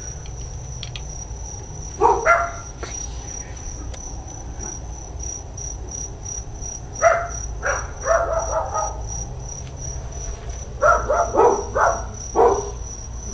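Dogs barking in short bursts: once about two seconds in, a cluster around seven to nine seconds, and a quick run near the end. Crickets keep up a steady high trill underneath.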